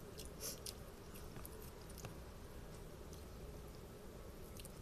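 Quiet eating sounds of noodles being eaten with chopsticks: a few scattered soft clicks and mouth noises over a faint steady background hum.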